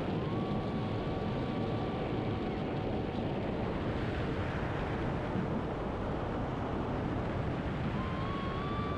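Steady rush of wind over the microphone of a rider-mounted camera during a fast zipline descent, with a faint thin whine heard briefly twice.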